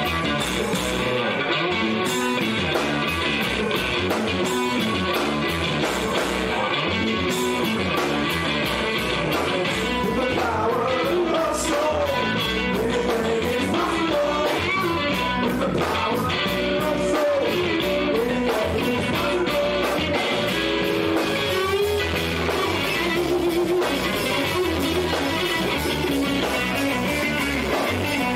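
Live rock band playing: an electric guitar through an amplifier over a drum kit, with a steady cymbal beat and a man singing.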